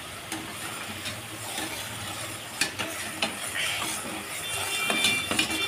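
Sugar syrup boiling in an aluminium pot, stirred with a steel ladle that clinks against the pot a few times. The syrup is being cooked down toward a one-string consistency.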